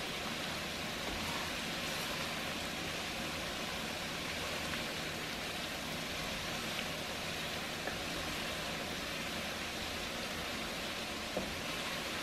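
Minced garlic frying in hot oil in a wok on high heat: a steady sizzle, with one light knock near the end.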